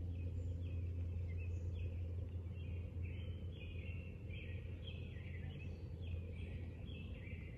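Small birds chirping in short repeated calls over a steady low outdoor hum.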